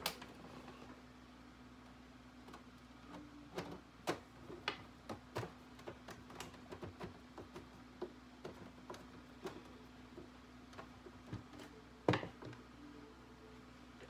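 A screwdriver driving a screw back into the rear cover of a Dell Inspiron One computer: a run of light, irregular metal clicks and ticks, with one louder click about twelve seconds in.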